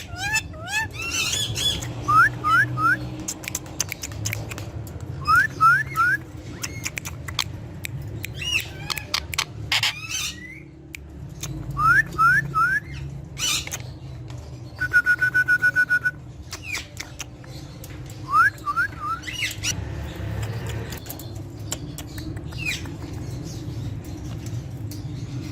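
Ringneck parrot calling: short rising chirps in quick runs of three, repeated several times, with a held, pulsing whistle about fifteen seconds in and scattered sharp clicks.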